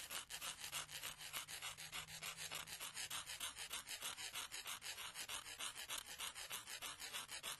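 Scribbling sound of a writing tool scratching rapidly back and forth on a surface, about five strokes a second, accompanying hand-drawn title letters.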